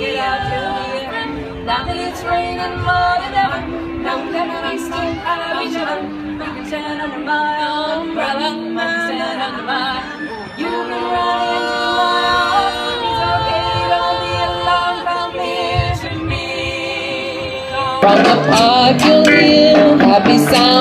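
A women's a cappella group of five singing in close harmony, with held chords and no instruments. About 18 seconds in, it cuts to a louder band song with a woman singing lead.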